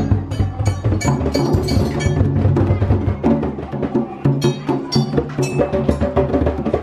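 Music with steady pitched tones and quick wooden-sounding knocks. Mixed in are the irregular slaps of toddlers' palms on the skin heads of hand drums.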